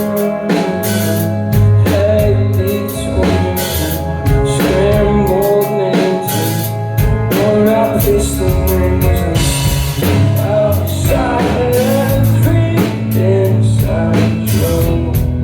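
Live rock band playing a song: a singer's wavering melody over drum kit, guitar and a heavy, steady bass line, with drum strikes on a regular beat.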